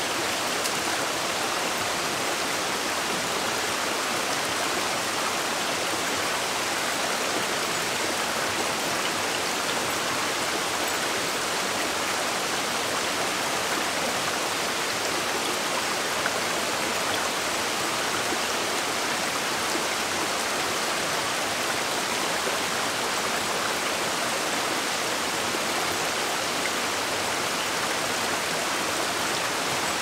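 Steady, unbroken rush of water, an even hiss with no pauses or changes.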